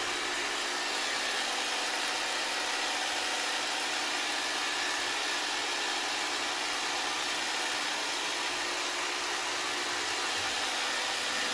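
Handheld percussion massage gun running steadily while held against the glute muscles, a constant motor buzz.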